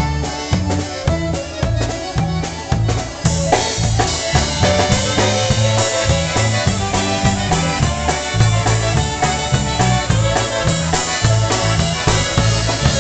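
Live polka band playing: a Chemnitzer-style concertina with horns, bass and drum kit over a steady oom-pah beat about twice a second. The band gets fuller and brighter about three seconds in.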